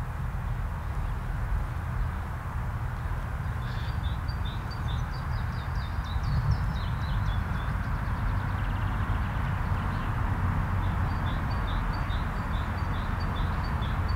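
Tractor engine running steadily as a low rumble, with a small bird singing over it: quick runs of short, high chirps about four seconds in and again near the end.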